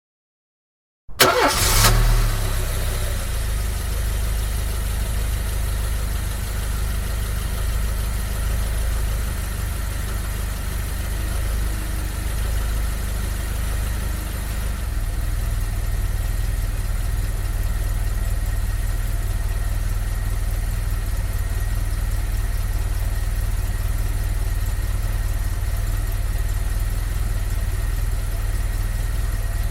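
Car engine heard from outside, starting about a second in with a brief loud catch, then settling into a steady idle.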